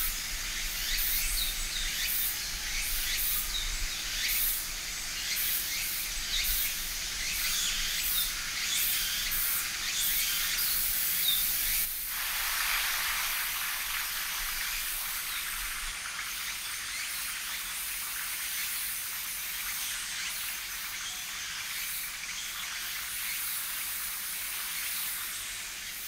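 River-side ambience of moving water with a few faint small-bird chirps. About halfway through it cuts to a steadier, fuller rush of shallow water spilling over rocks.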